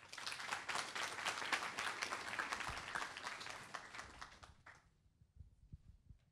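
Audience applauding, a dense patter of many hands that fades away after about four to five seconds. A few faint low thumps follow near the end.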